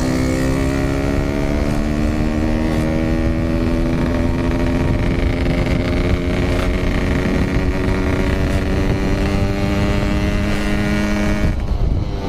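Yamaha RX King 135cc single-cylinder two-stroke engine held at high revs under way, its pitch sagging slightly, until the throttle is shut suddenly near the end. Wind noise rushes over the microphone throughout.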